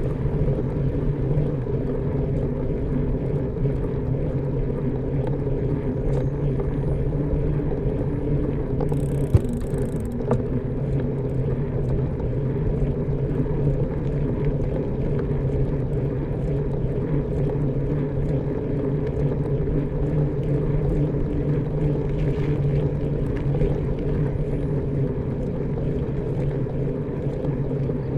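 An engine running steadily at an unchanging pitch, with a single sharp click about nine seconds in.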